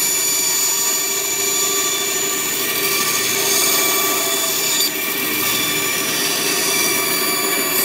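Bandsaw running steadily while its blade cuts a tight curve in plywood, with the cutting hiss growing louder twice as the blade bites into the wood.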